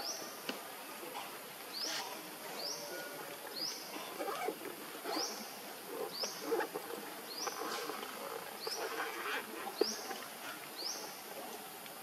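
A short, high, upward-sweeping animal chirp repeated about ten times, roughly once a second at uneven spacing, over fainter scattered rustling sounds.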